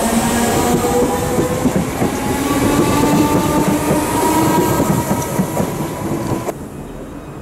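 Merseyrail electric multiple unit pulling out along the platform: its traction motors whine in a slowly rising pitch over the rumble and clatter of wheels on rail joints. The sound cuts off suddenly about six and a half seconds in.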